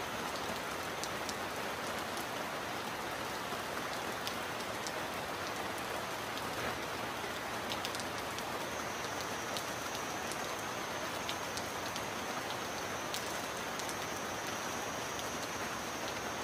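Steady heavy rain with scattered sharp drop ticks standing out, and no thunder.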